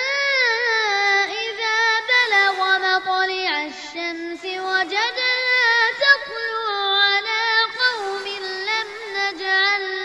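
A young boy's high voice chanting Quran recitation in long, drawn-out melodic phrases, gliding between held notes with short pauses for breath.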